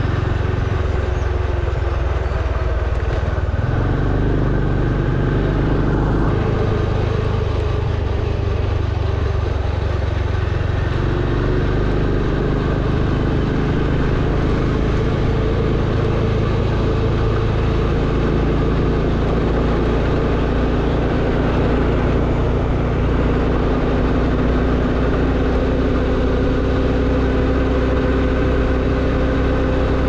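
Motorbike engine running at a steady road speed, its pitch shifting a few times, over a steady rushing noise.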